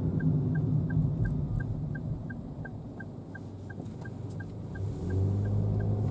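Turn-signal indicator ticking steadily in the cabin of a Daihatsu Move kei car, about three ticks a second. Underneath are its three-cylinder engine and road noise, with a deeper steady engine hum coming in about five seconds in.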